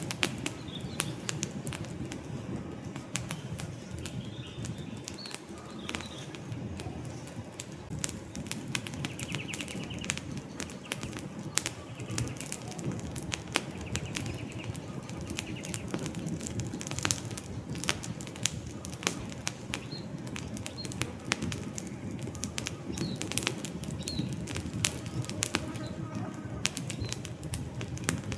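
Wood campfire crackling, with frequent sharp pops and snaps over a steady low rush of flame. Faint short bird chirps come through now and then.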